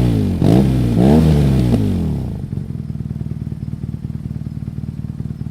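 BMW R nineT's boxer twin through its stock exhaust with the baffle removed: the revs drop, it is blipped twice more, then it settles about two seconds in to a steady, pulsing idle.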